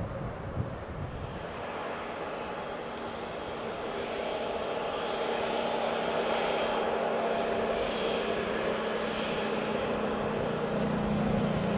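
Airbus A320 jet engines running: a steady turbofan hum and whine with several held tones, growing louder about four seconds in.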